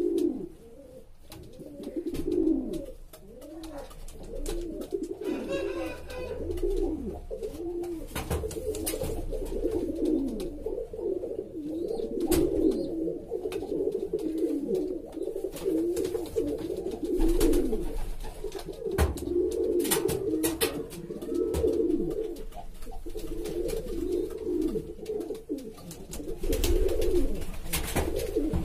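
Domestic pigeons cooing over and over, a low rolling coo repeated without a break, with a few sharp clicks in between.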